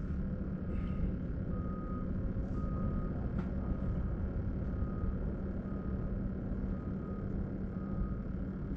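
Steady low engine-like rumble, with a faint high beep repeating about once a second.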